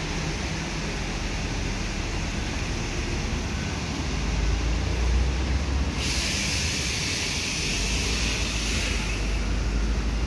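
City street traffic: a steady low rumble of vehicles. About halfway through, a louder hiss comes in suddenly and lasts a few seconds.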